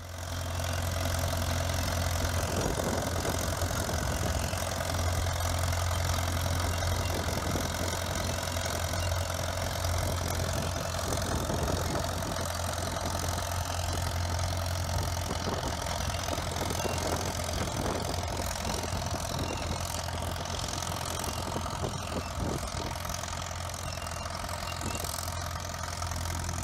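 1951 Oliver crawler tractor's engine running steadily under load as it drags a weighted pulling sled, a low, even drone. It eases off slightly near the end of the pull.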